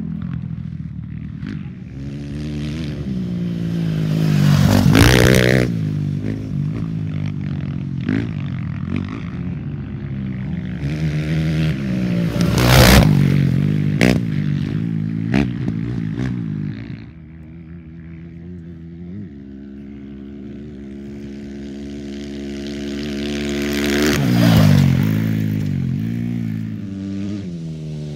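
Off-road race dirt bikes going past at speed, engines revving hard and swinging up and down in pitch as each one approaches and passes. The loudest passes come about five seconds in, about thirteen seconds in, and near the end, with a more distant engine drone between them.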